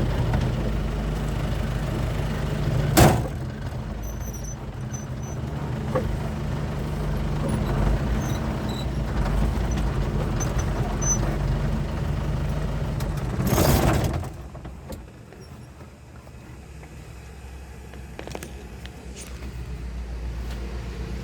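A light truck's diesel engine running steadily under way, heard from the cab, with a sharp knock about three seconds in. A short rush of noise comes about thirteen and a half seconds in, and then the engine settles to a quieter, lower hum.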